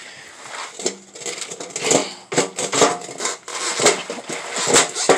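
Household junk being handled and dropped onto a concrete floor: a run of irregular knocks and clatters, the sharpest near the end.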